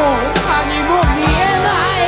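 Live rock band playing an upbeat song, the drums keeping a steady beat, with a male voice singing over it.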